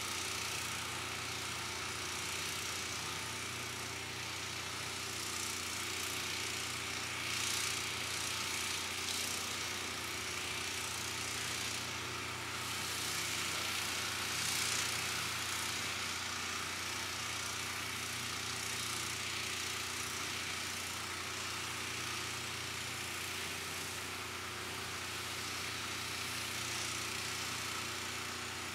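Steady machine-like hum with a hiss over it that swells a few times.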